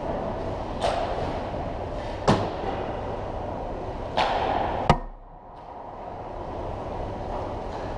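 Ice hockey rink sounds: steady background noise with skate blades scraping the ice and sharp cracks of sticks and pucks. The loudest cracks come about two seconds in and just before five seconds, the second one followed by a brief drop in the background noise.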